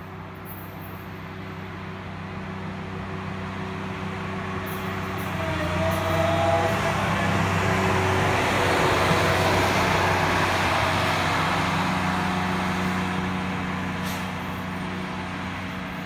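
Engine of a self-propelled rail track maintenance machine, a Mark IV tamper, running as it rolls past on the track. It grows louder to a peak about halfway through, then fades as it moves away.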